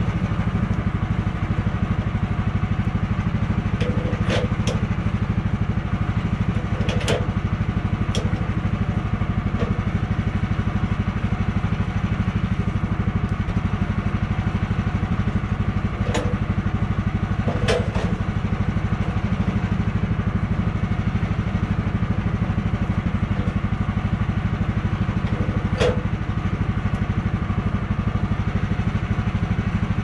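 The Woodland Mills HM130 sawmill's 14 hp Kohler engine running steadily, with several sharp knocks scattered through.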